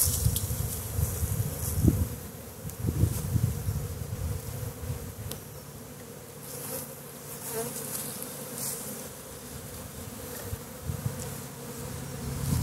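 A steady hum of many honeybees buzzing as they fly in and out around an open hive. Low gusts of wind buffet the microphone in the first few seconds.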